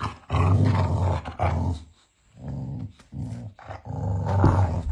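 Boxer dog play-growling while mouthing a socked foot: a string of about five low grumbling growls, each half a second to a second long, with short breaks between them.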